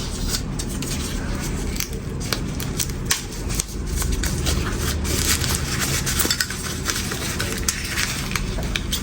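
Rustling of packaging with repeated small clicks and clinks as metal Zippo lighters are unwrapped and handled; the rustling grows stronger about halfway through.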